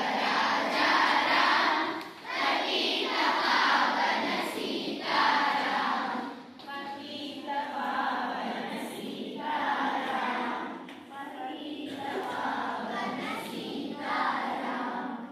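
A group of voices singing together in unison, mostly women's, in phrases of a few seconds with brief pauses between them.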